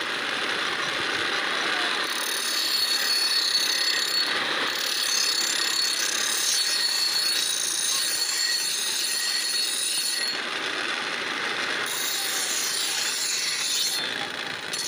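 Steel blade being sharpened against a pedal-driven grinding wheel: a steady, hissing scrape of metal on the turning stone.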